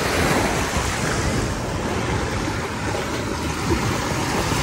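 Steady rush of sea surf washing on the shore, with wind buffeting the microphone.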